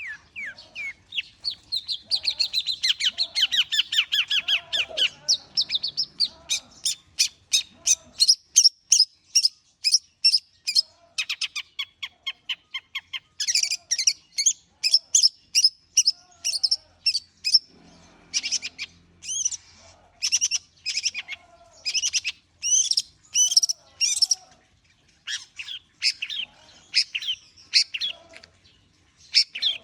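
Long-tailed shrike (cendet) in warm-up song: a fast, near-continuous stream of sharp chattering notes in changing phrases.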